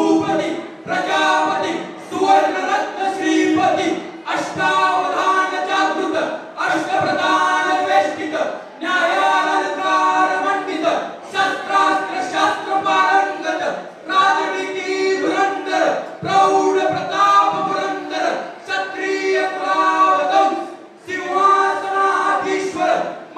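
Young male voices singing into microphones, amplified through PA speakers in a hall, with little or no instrumental backing. The song comes in sung phrases, with held notes and short breaks between them.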